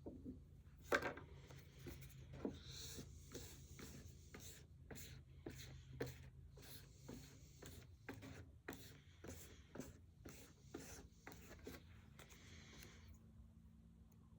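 A card scraping and wiping diamond paste across a leather strop on a plywood block: a quick run of short rubbing strokes with small clicks. The strokes stop about a second before the end.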